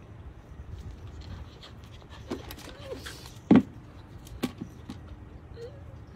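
A puppy panting and making short squeaky whimpers as it scrambles up onto an upturned clay-pot platform. There are a few sharp knocks; the loudest is about three and a half seconds in.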